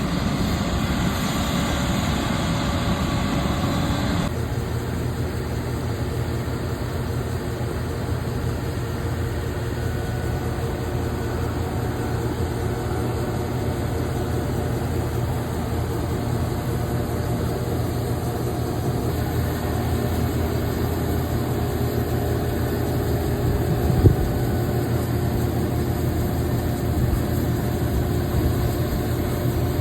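Combine harvester's diesel engine running steadily. The higher-pitched part of the sound drops away abruptly about four seconds in, and there is a single short knock near the end.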